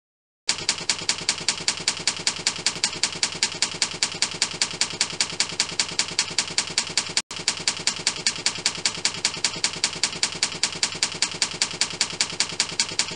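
Typing sound effect: an even run of sharp keystroke clicks, about five a second, matching text being typed out letter by letter, with one brief break about seven seconds in.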